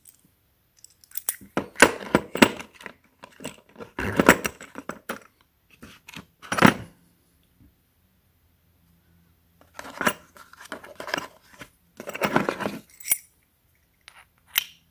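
Steel adapter plates and the threaded screw tool of a brake caliper piston wind-back kit clinking and clicking against each other as they are handled and fitted together. The clinks come in several clusters, with a pause of a couple of seconds in the middle.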